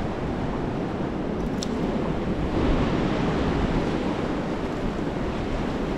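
Surf washing onto the beach as a steady rush, with wind on the microphone; the wash swells a little about two and a half seconds in.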